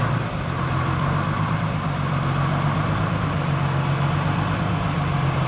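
Fire truck engines running at a low, steady idle as the trucks roll slowly past.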